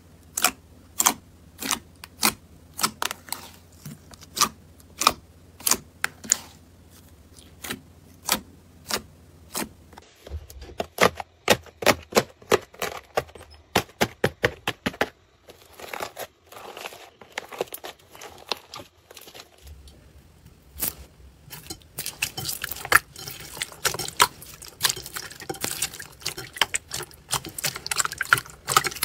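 Slime being pressed and kneaded by hand, giving a run of sharp wet clicks and pops, spaced out at first and coming faster and denser in the last third.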